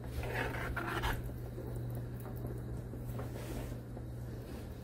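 Spoon stirring thick, creamy stroganoff sauce in a cast-iron skillet, mostly in the first second or so, with a second short stir about three seconds in, over a steady low hum.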